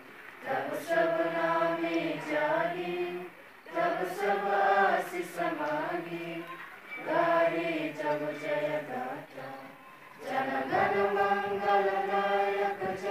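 A large group of boys' and girls' voices singing together in unison, in four long phrases of held notes with short pauses for breath between them.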